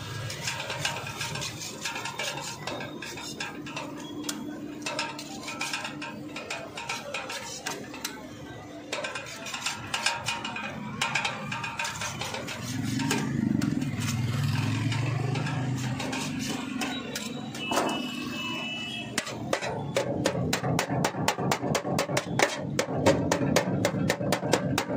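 Knife slicing roasted chicken off a shawarma spit, with scattered clicks of the blade against the spoon and spit. About twenty seconds in it switches to rapid chopping on a steel tray, about five knife strikes a second.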